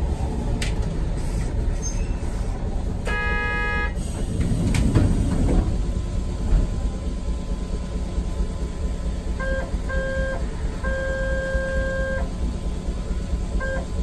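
Steady low rumble of a city tram heard from inside the car near the front. About three seconds in comes a short pitched toot, and around ten seconds in a series of pitched beeps: two short, then one longer.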